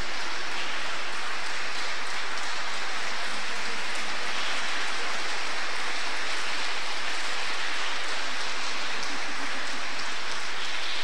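Audience applause, a dense, even clatter of clapping that holds steady without a break.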